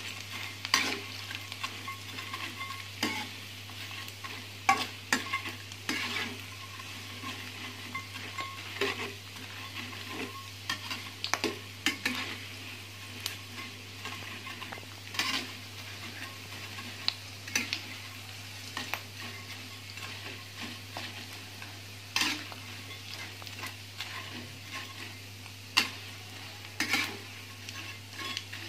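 Dried anchovies coated in tapioca starch frying in hot oil in a wok: a steady sizzle, with a spatula knocking and scraping against the pan every second or two as they are stirred. The anchovies have turned colour and are nearly done.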